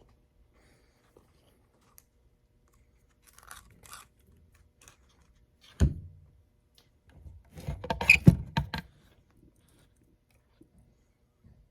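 Wire strippers crunching through insulation on electrical wire, with a quick run of crunching clicks about halfway through, after a single low knock on the workbench.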